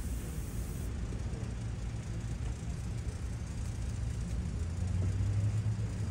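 A motor vehicle engine running with a steady low hum, which grows louder about five seconds in.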